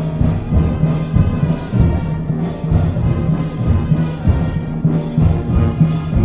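Brass band music: low brass holding sustained notes over a steady drum beat about twice a second.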